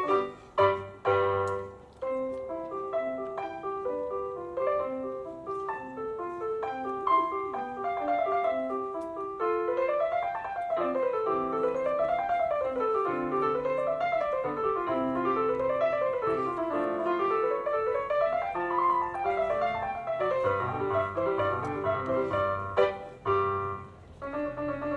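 Casio electronic keyboard played in a piano voice: a melody over chords, then from about ten seconds in, fast arpeggios sweeping up and down again and again, with bass notes underneath.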